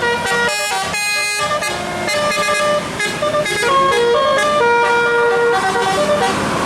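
Bus telolet horn, a multi-tone horn, playing a quick melody of short changing notes, with one longer held note about five seconds in.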